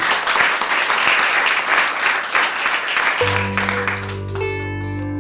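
A small group clapping, which stops about three seconds in as music starts: plucked-string notes over a steady low drone.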